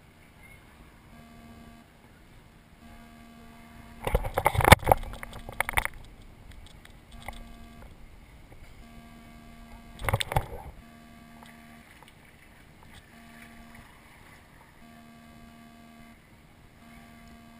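Water from a lazy river slapping and splashing against a camera riding low on an inner tube: two loud, rough bursts, one of about two seconds around four seconds in and a shorter one around ten seconds in, over a faint steady hum.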